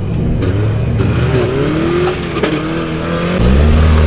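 Off-road truck engine revving, its pitch rising and falling. About three and a half seconds in, the engine gets louder and holds a steady low note.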